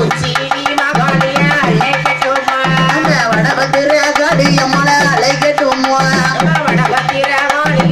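A woman singing a Tamil kummi song through a microphone and loudspeaker, with a double-headed hand drum keeping a steady beat under the voice.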